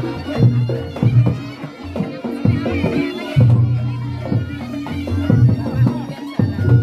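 Reog Ponorogo ensemble playing live: a slompret (Javanese shawm) wailing over kendang drum strokes at a steady pulse, with the sustained ringing of gong-type instruments underneath.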